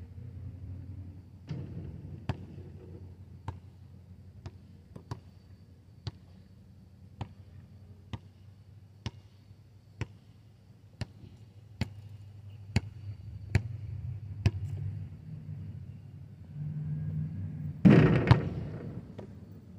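A basketball being dribbled on asphalt, one sharp bounce about every second for much of the time. Near the end comes a single much louder crash of noise.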